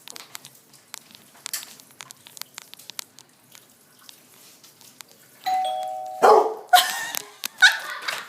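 Faint clicking, then about five seconds in a two-tone doorbell chime, a higher note followed by a lower one. It is cut short by a dog's loud, sharp bursts, three of them within about a second and a half.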